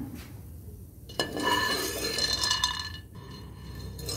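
Steel spoon scraping and clinking against a nonstick pan while scooping out roasted makhana (fox nuts), with a sharp knock about a second in.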